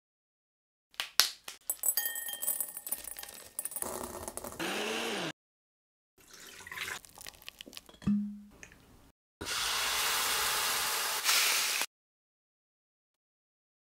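Kitchen prep sounds in quick cuts: the dry husk of an ear of Glass Gem corn rustling and crackling as it is pulled off, liquid going into a blender jar, then a countertop blender running steadily for about two and a half seconds and cutting off suddenly.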